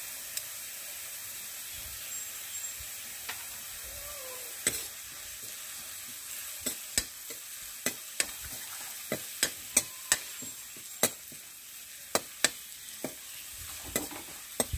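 Onion, ginger and garlic paste frying in hot mustard oil in a kadai, sizzling steadily, with a spatula clicking against the pan as the masala is stirred. The clicks come much more often from about six seconds in.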